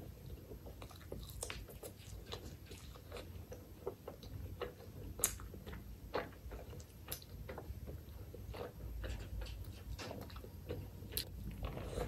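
A person chewing mouthfuls of chicken liver curry and rice, eaten by hand, close to the microphone: many small irregular mouth clicks, with one sharper click about five seconds in.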